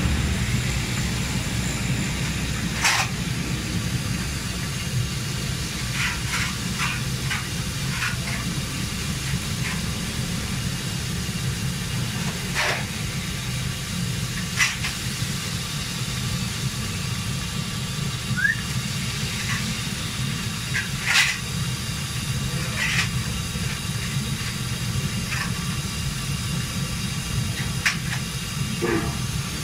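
Fish frying in a large karahi of hot oil: a steady sizzling hiss over a continuous low rumble, with scattered sharp clinks of a metal utensil against the pan.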